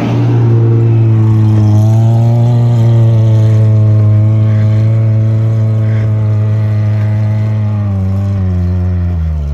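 Suzuki Samurai's engine pulling hard under load through deep snow, with the revs held steady. The pitch drops near the end.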